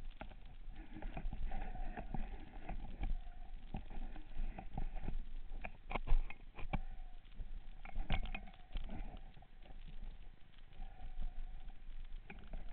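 Muffled, irregular knocks and sharp clicks picked up underwater through a camera's waterproof housing as the diver holding it moves and grips it, over a low rumble; the sharpest clicks come about six and eight seconds in.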